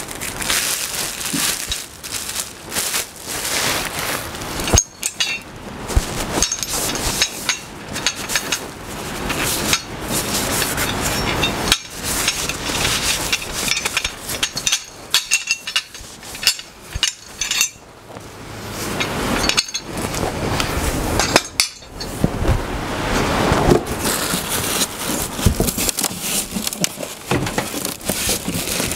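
Plastic packaging crinkling and rustling, with metal parts clinking and knocking, as table saw wheel-assembly parts are pulled from the carton and unwrapped.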